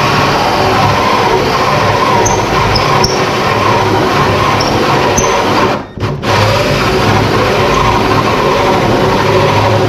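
Power drill spinning a hole saw as it cuts into a wooden door for a lockset, a steady loud grinding whir. It stops for a moment about six seconds in and then starts again.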